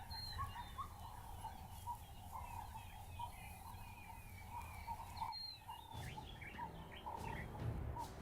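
Several birds chirping and whistling at once, one of them repeating a short note over and over.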